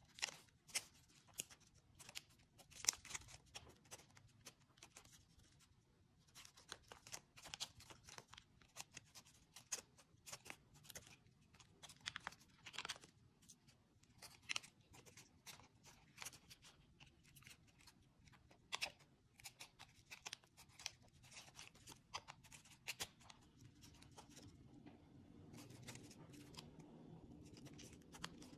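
A sheet of brown origami paper crinkling and crackling as it is folded and creased by hand: many short, crisp crackles at an irregular pace. A faint low hum comes up in the last few seconds.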